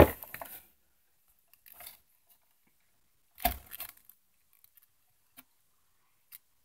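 Handling of a plastic toy figure and its cardboard box: a brief rustle dying away, then one sharp knock about three and a half seconds in, and a few faint clicks.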